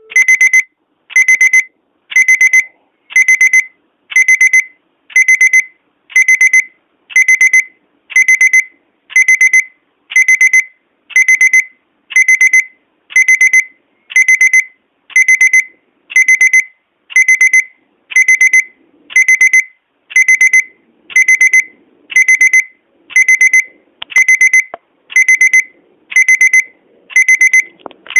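NGM Soap mobile phone's alarm-style beep ringtone: a high electronic beep, rapidly pulsed, repeating steadily about once a second.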